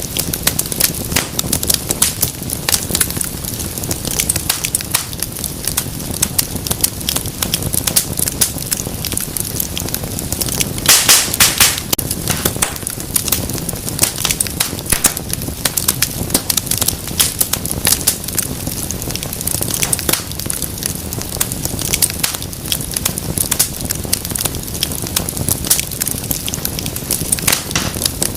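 Wood fire crackling in a fireplace: dense small snaps throughout over a low rumble of flame, with a burst of louder pops about eleven seconds in.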